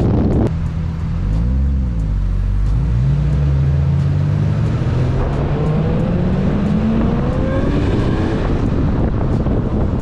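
Turbocharged 1JZ inline-six engine of a Toyota Chaser under way: a short rise and fall in revs, then a steady pull with its pitch climbing slowly over several seconds as the car accelerates. Heavy wind and road noise at the start and again near the end.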